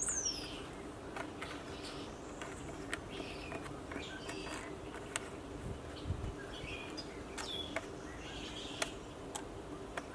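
Small birds chirping outdoors, with a quick falling whistle right at the start. Scattered light clicks and a faint steady hum sit underneath.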